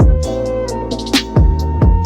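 Background music with a steady beat: deep bass drum hits and ticking hi-hats under sustained melodic tones.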